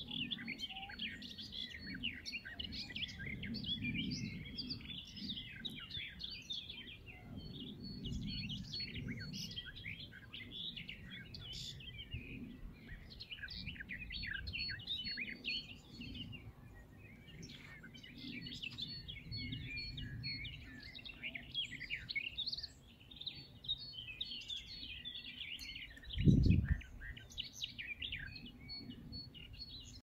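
Several songbirds singing and calling together, a dense mix of chirps and trills that hardly pauses, over a low rumble that swells and fades. A short low thump near the end is the loudest sound.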